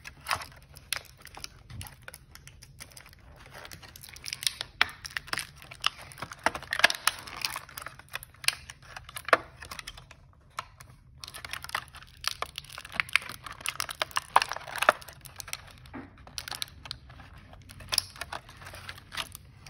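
Thin clear plastic toy packaging crinkling and crackling, with irregular snaps and tearing, as small doll accessories are worked free of it. There is a short pause about halfway through.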